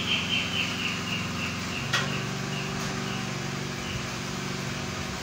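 Steady low machine hum with a constant pitch, which shifts slightly about two seconds in. A single sharp click comes at about the same moment.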